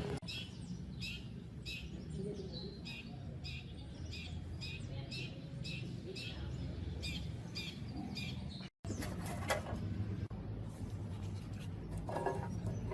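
A small bird chirping over and over, about two short high chirps a second, over a low steady hum. After a sudden break near the end, a few clicks and knocks.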